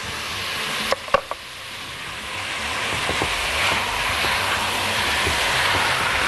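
Tomato paste and chicken livers and gizzards frying in hot oil in a pot, stirred with a silicone spatula. There are two sharp taps about a second in, then the sizzle grows steadily louder and holds.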